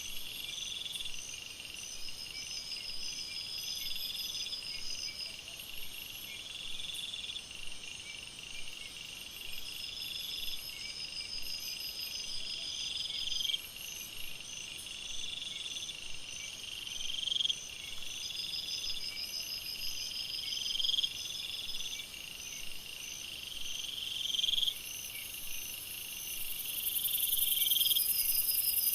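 Night chorus of insects in a jungle, with a steady high trill underneath. A call repeats about every three and a half seconds, swelling for about a second and stopping abruptly, and a loud high hiss-like buzz builds in near the end.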